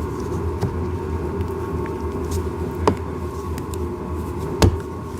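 A steady low rumble and hum with a few light clicks and knocks of plastic ride-on-car parts being handled. The sharpest click comes about three seconds in and the loudest near the end.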